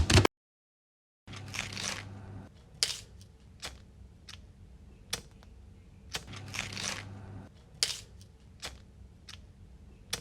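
Close handling sounds: two longer rustling, tearing-like swishes about five seconds apart and a scatter of sharp clicks, over a low steady electrical hum.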